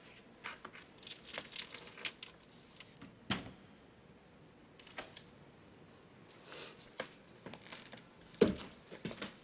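Soft clicks and taps at an apartment door, with a thump about three seconds in and a sharper, louder thump near the end.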